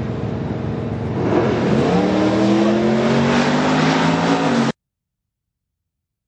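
Drag race car engine running, then accelerating hard from about a second in, its pitch climbing steadily; the sound cuts off suddenly near the end.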